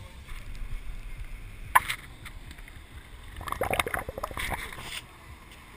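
Beer being chugged from a can held right at the microphone: gulping and glugging, loudest about three and a half to four and a half seconds in. There is a sharp knock just under two seconds in and a low rumble throughout.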